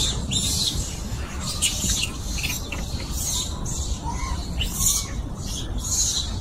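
Wind rumbling on the microphone, with scattered short high chirps and squeaks from animals, a few of them quick rising-and-falling calls.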